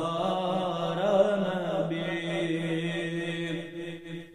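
A man's solo, unaccompanied voice chanting an Urdu naat, drawing out a long, wavering melismatic note that settles into a steady held tone about halfway through and fades near the end.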